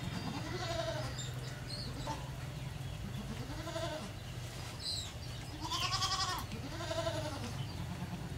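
An animal calling about four times, each call rising and then falling in pitch, with a steady low hum beneath.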